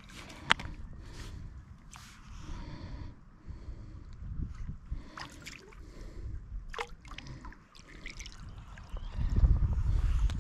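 River water trickling and gurgling, broken by a few sharp clicks and splashes. From about nine seconds in, wind buffets the microphone with a loud low rumble.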